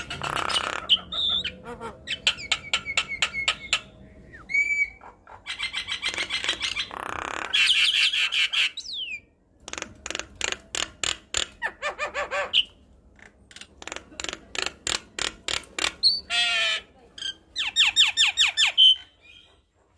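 Javan myna (jalak kebo) singing: runs of rapid harsh chattering notes, about six a second, broken by short whistles and brief pauses.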